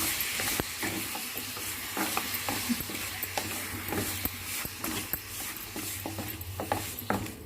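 Raw mutton pieces with salt and turmeric being stirred in a hot oiled pan: a steady sizzle with the spoon scraping and knocking against the pan in irregular clicks.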